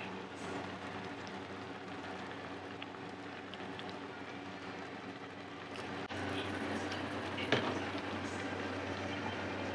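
Katsudon broth bubbling in a small pan on a gas burner over a steady kitchen hum, with a sharp metallic clink about seven and a half seconds in.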